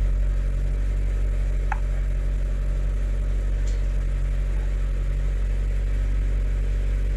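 Mazda6 engine idling steadily, heard from inside the car's cabin as a low hum. One short chirp sounds about two seconds in.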